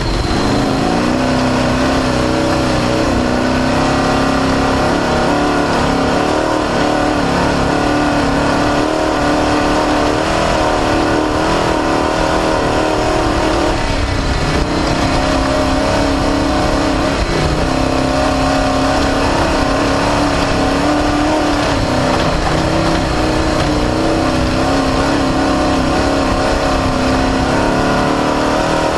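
Off-road race car's engine running hard, heard from onboard. Its pitch wavers up and down with the throttle over a heavy, continuous rumble.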